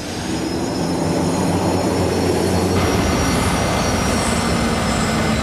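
Hydroplane's gas turbine engine spooling up and running, a loud rushing roar laced with steady high-pitched whine tones. It swells over the first second, then holds steady.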